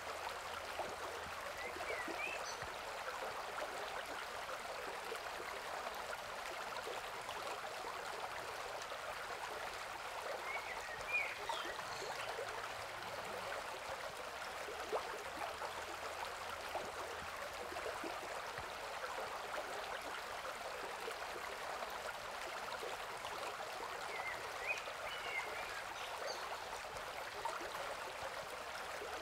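Shallow rocky stream running over stones and small riffles, a steady rush and babble of water. A few brief high chirps come through three times.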